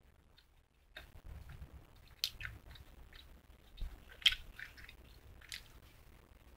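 Close-up chewing of a strawberry candy stick: irregular short mouth clicks. The loudest click comes a little past the middle.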